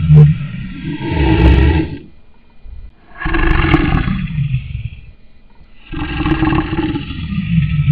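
Lion roaring in three long roars. The first tails off about two seconds in, the second follows about a second later and lasts around two seconds, and the third starts about six seconds in.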